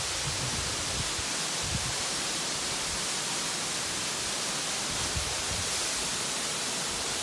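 Lower Calf Creek Falls, a tall waterfall plunging into its pool, gives a steady, even rush of falling water. A few brief low rumbles come and go underneath.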